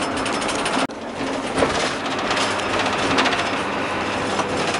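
Metal cabinets and equipment rattling and jingling in the back of an ambulance, over a steady hum.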